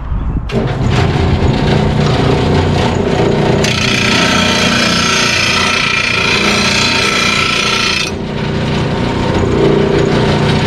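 RBG-950 blade sharpener's motor and grinding wheel start up and run. From about three and a half to eight seconds in, a mower blade is pressed against the wheel with a loud, harsh grinding rasp, then the machine runs on alone. The pass takes metal off the blade's heavy side to bring it into balance.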